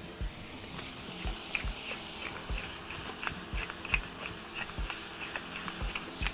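Wooden pepper mill grinding black peppercorns: a run of small dry clicks, about two or three a second, as the mill is twisted.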